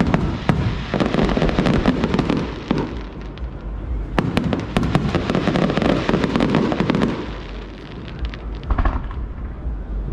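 Fireworks going off: a few sharp bangs at the start, then two long stretches of dense crackling, about a second in and again about four seconds in, over a low rumble.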